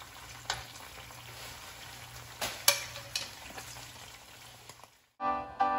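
Marinated beef slices sizzling in oil in a nonstick frying pan, with a few clinks of a metal fork against the pan, the loudest about two and a half seconds in. The sizzle cuts off about five seconds in and music begins.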